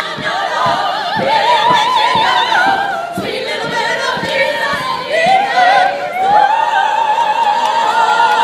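A group of women singing together in a full, classical style with strong vibrato, settling into a long held high note over the last couple of seconds.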